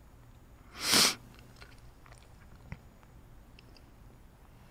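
A man drawing a loud breath close to the microphone about a second in, followed by a few faint mouth clicks.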